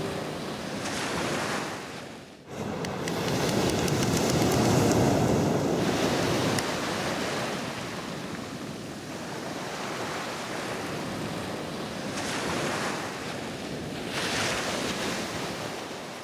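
Sea surf breaking and washing over a pebble beach, swelling and fading in long surges, with wind on the microphone. There is a short break about two and a half seconds in.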